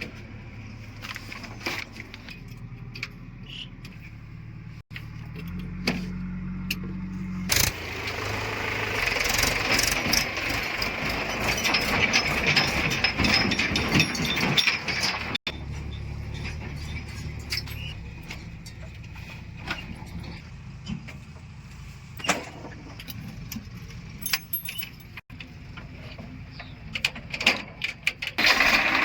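Heavy diesel machinery running, with metallic clanks and rattles; the sound turns louder and harsher for several seconds in the middle, and changes abruptly a few times.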